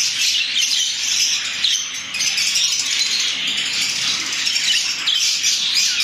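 Many budgerigars chattering at once: a dense, unbroken mix of rapid high chirps and warbles.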